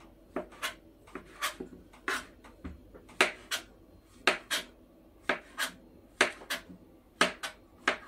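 Kitchen knife slicing fresh porcini mushrooms on a plastic cutting board: the blade knocks sharply on the board about twice a second, often in quick pairs.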